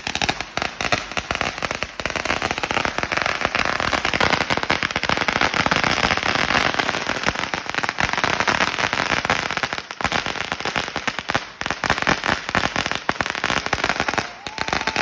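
A 16,000-shot firecracker roll going off in a rapid, unbroken stream of bangs and crackles. A short pitched cry rises over it near the end.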